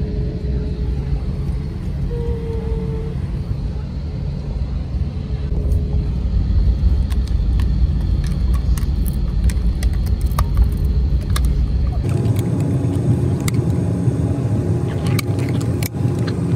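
Airliner cabin noise: a steady low rumble. About twelve seconds in it changes abruptly to a different steady hum, with a few sharp clicks near the end.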